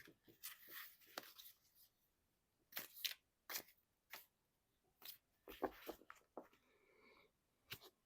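Faint, scattered rustles and taps of tarot cards being handled.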